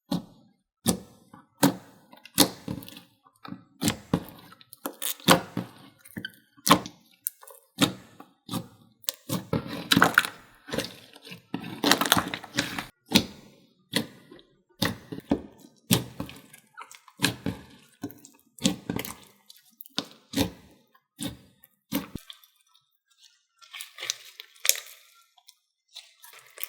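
Slime being squeezed and poked by hand, giving sharp clicks and wet pops in quick irregular succession. The clicks stop a little past the 22-second mark, leaving a few softer squishes.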